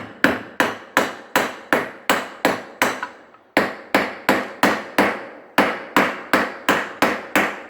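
Rubber mallet tapping a 6201 ball bearing into a ceiling fan's bearing seat, about three sharp strikes a second with a short pause about three seconds in, as the bearing is driven home.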